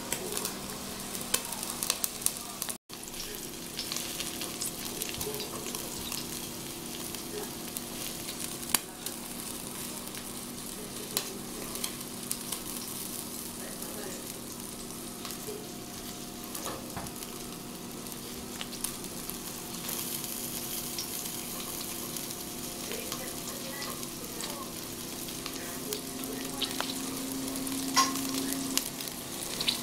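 Meat skewers sizzling over hot charcoal on the rack of a Femor tabletop smokeless grill, a steady hiss with scattered small pops. A faint steady hum runs underneath, from the grill's built-in fan.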